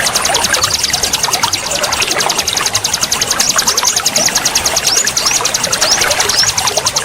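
Songbirds giving many quick, short rising chirps and calls over the steady rush of waterfall water, with a fast, even high-pitched pulsing trill behind them.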